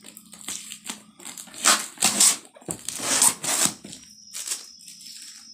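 Packing tape being ripped off a cardboard parcel box: a few loud tearing rips around two and three seconds in, with lighter rustling and scraping of the box between.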